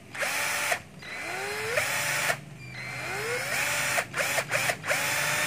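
12-volt cordless drill-driver run with repeated trigger pulls after being switched to reverse. The motor spins up with a rising whine, runs a second or so, stops, and starts again several times, with a few quick blips about four seconds in.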